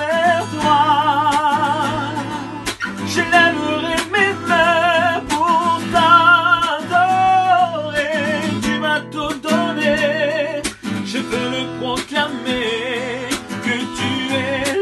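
A man singing a hymn with a wide vibrato, accompanying himself on a strummed acoustic guitar.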